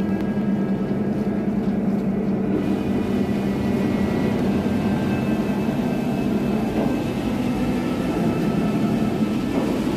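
A boat's engines running with a steady low drone, heard from on board.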